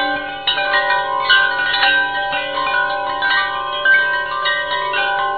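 Chiming ending music: bell-like notes struck one after another, each ringing on and overlapping the next, like a wind chime.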